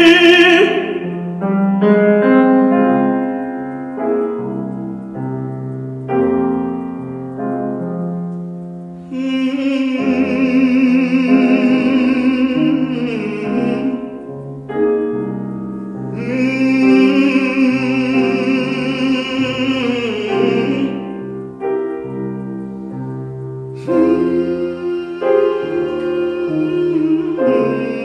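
Piano playing a slow accompaniment to a spiritual, with a singer holding three long wordless vibrato notes over it: about a third of the way in, past the middle, and near the end.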